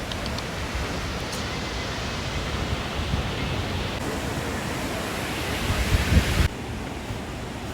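Steady rushing noise of sea surf and wind, with wind buffeting the microphone in a few gusts just before six and a half seconds in. The noise changes abruptly about four and six and a half seconds in.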